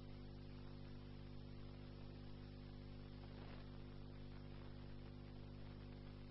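Faint steady electrical hum with a low hiss: recording noise floor with no speech.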